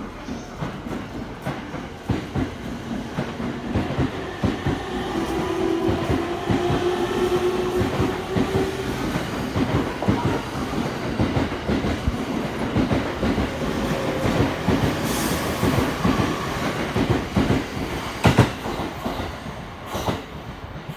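JR East E231 series electric multiple unit pulling out and accelerating past, its traction motors giving a rising whine as it gathers speed, with the wheels clattering steadily over the rail joints.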